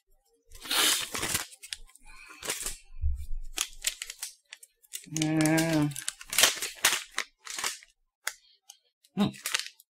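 Crinkling and tearing of a plastic candy pouch being opened by hand, in several irregular bursts, with a short steady hum about halfway through.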